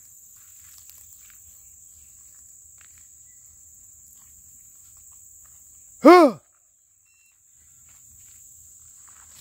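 A steady, high insect drone from the brush, with one short, loud bark or bawl from a rabbit hound about six seconds in.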